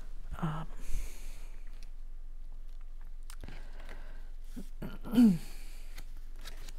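Card-stock pieces being handled on a cutting mat: light taps, clicks and paper rustles as pieces are picked up and moved. A short wordless voice sound comes twice, the louder one about five seconds in, falling in pitch.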